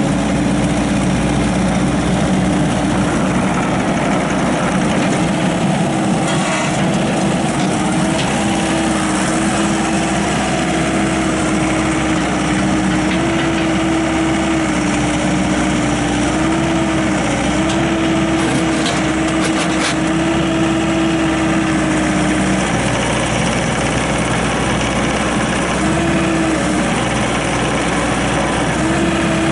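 Bobcat 442 excavator's Deutz diesel engine running steadily, its pitch shifting slightly up and down now and then.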